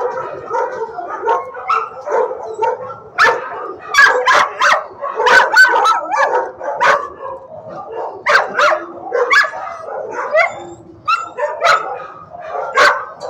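Shelter dogs barking and yipping, the barks coming thick and overlapping with hardly a pause, loudest in the middle and again near the end.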